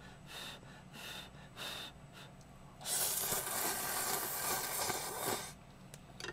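Person slurping Shin Ramyun instant noodles: three short breaths, then one long slurp lasting about two and a half seconds.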